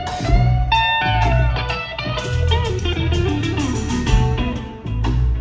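Live rock trio playing: an electric guitar solos with bent, sliding notes over bass guitar and drums.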